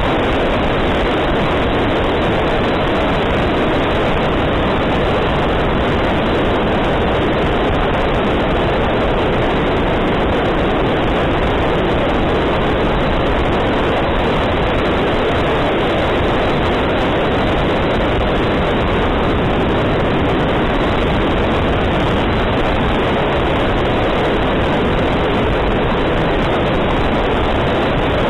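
Steady rush of airflow and electric ducted-fan noise picked up by a camera riding on an E-flite F-15 RC jet in flight. It is a loud, even hiss with no clear pitch and no changes in level.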